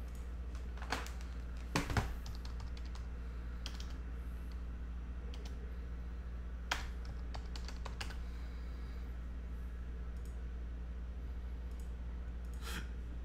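A few scattered keystrokes and clicks at a computer keyboard, spread out with long gaps between them, over a steady low hum.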